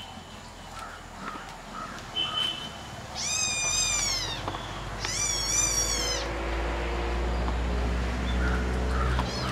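Kitten meowing: two long, high-pitched meows in a row, each sagging slightly in pitch, with a few faint short squeaks before them. A low steady hum sets in under them and carries on.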